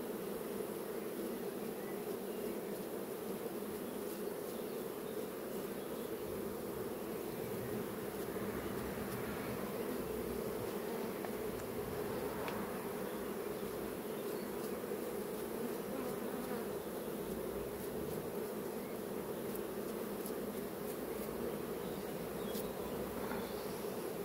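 Honeybees buzzing steadily around an opened hive: a dense, even hum.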